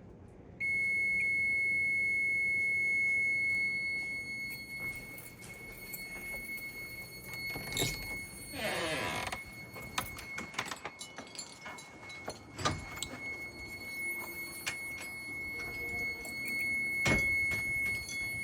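Carbon monoxide meter alarm sounding one continuous high-pitched tone that starts about half a second in, signalling a dangerous CO level from a gas furnace, with clicks and knocks as the meter is handled.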